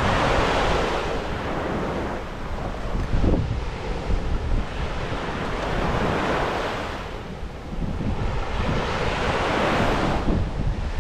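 Surf on a beach: three waves swell up and wash in, each rising and falling over a second or two, with wind buffeting the microphone as a steady low rumble.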